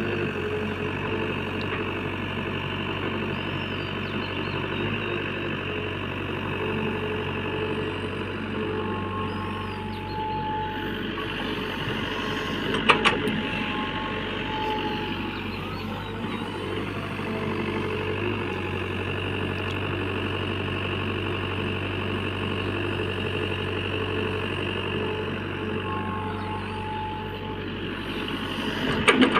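JCB backhoe loader's diesel engine running steadily while it works, with sharp knocks about halfway through and again near the end.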